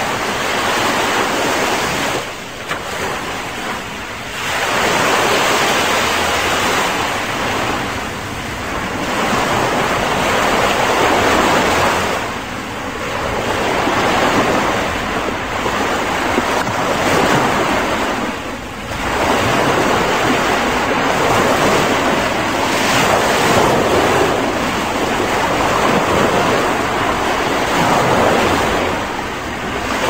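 Small ocean waves breaking and washing up a sandy beach, the surf swelling and easing every few seconds.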